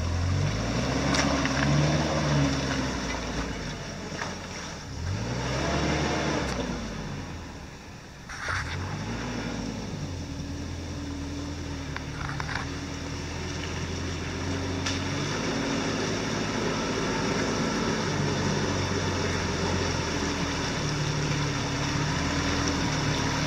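Toyota 4Runner's engine revving up and down several times in the first ten seconds as it drives through muddy water, then running steadily at low revs as it crawls along.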